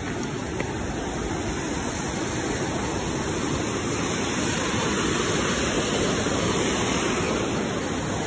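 Mountain river rushing over rocks below a footbridge: a steady, loud whitewater noise.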